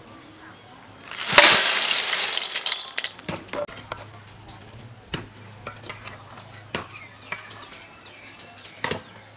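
Small shellfish poured from a woven basket into a steel bowl: a loud rattling rush of shells lasting about a second and a half, followed by scattered clinks of shells and spoon against the metal.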